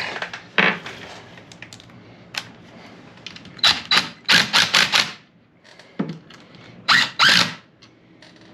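Ratchet wrench clicking in short runs as small bolts are run in on a differential's backlash adjuster stops: one click about half a second in, a quick run of about six in the middle, and two more near the end.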